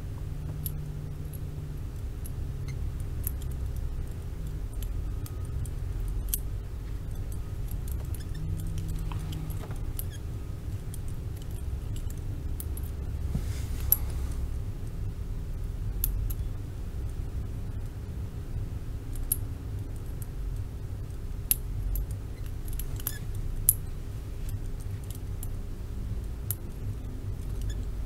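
Small metallic clicks and clinks of a handcuff lock being picked with an improvised pick, coming irregularly, with a few sharper clicks standing out.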